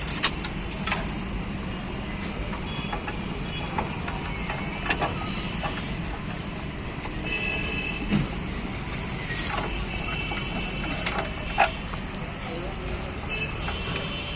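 Scattered metallic clinks and knocks of parts and hand tools being handled while scooter body parts are refitted, over a steady low rumble.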